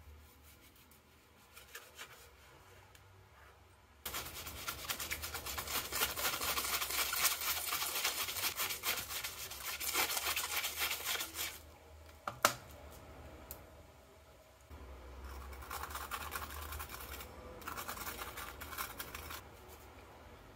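A knife cutting a lemon on a plastic cutting board, with faint soft clicks. About four seconds in, a cabbage head is pushed back and forth across a plastic mandoline slicer, giving a loud, fast scraping rasp for about eight seconds, then one sharp knock. Shorter bursts of scraping follow.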